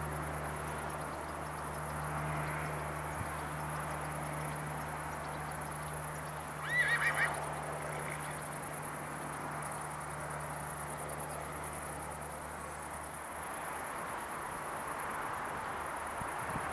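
Distant jet airliner engines running at taxi power, a steady rushing hum with a low drone that fades about four-fifths of the way through: the GE90 engines of a Boeing 777-300ER lining up for takeoff. About seven seconds in, a short wavering animal call, like a horse whinnying, is the loudest sound.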